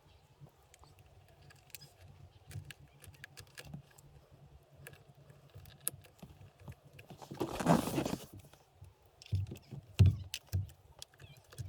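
Hand work on a truck's steering wheel during the install: scattered light clicks and handling noises, a louder rustling scrape lasting about a second past the middle, then a few dull knocks.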